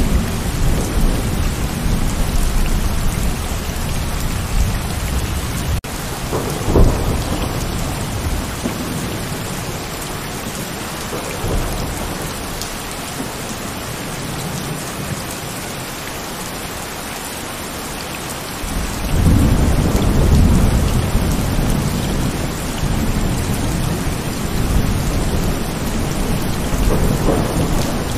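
Heavy rain falling steadily, with rolling thunder. A sharper clap comes about seven seconds in, the rumble dies down for a while, then a long deep rumble builds again about two-thirds of the way through.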